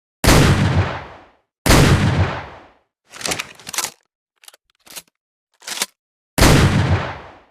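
Double-barrel shotgun sound effect. Two shots a second and a half apart, each with a fading boom, then a few short sharp clicks of the gun being handled, and a third shot near the end.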